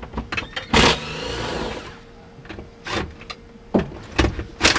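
Cordless DeWalt driver with a 13 mm socket running in short bursts, backing out bolts: about a second of motor whine starting just under a second in and another burst near the end, with sharp clicks and knocks of tool and metal in between.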